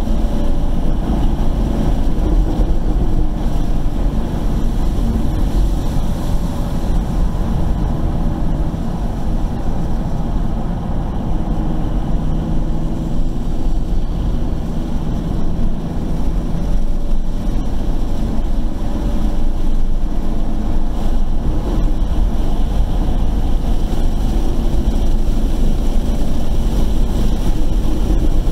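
Car engine running in second gear at mid revs through corners, with steady tyre and wind noise, heard from inside the car.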